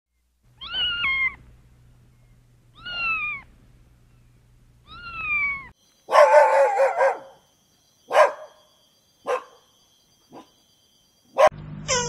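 A kitten meowing three times, each meow falling in pitch. Then a dog barks: one longer, rougher bark followed by three short barks, the last faint. A sharp click comes near the end.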